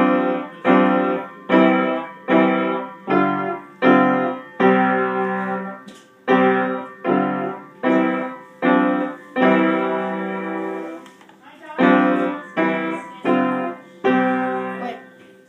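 Piano played as a simple tune of struck chords, about one every three-quarters of a second, each fading before the next, with one longer held chord about ten seconds in and a short pause soon after.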